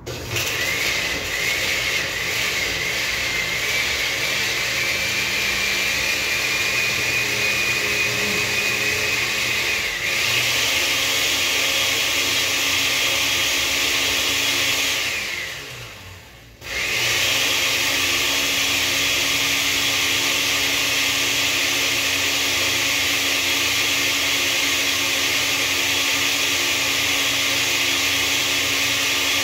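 Countertop blender motor puréeing toasted chilies with water. It starts with a whine that climbs slowly, jumps to a higher speed about ten seconds in, then winds down and stops briefly about halfway through before starting again and running steadily.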